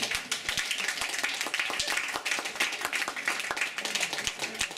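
Audience applauding: many people clapping steadily at the close of a reading.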